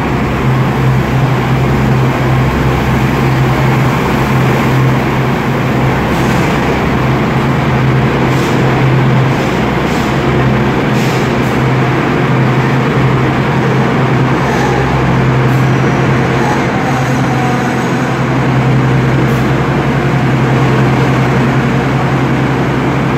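MTA subway vacuum train running past on the station track, giving a loud, steady low drone over a dense rumble that echoes in the underground station.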